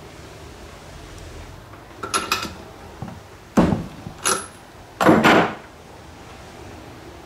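Sharp clacks and knocks of metal tools and parts being handled against the chainsaw, in four short clusters from about two to five and a half seconds in, the last the loudest.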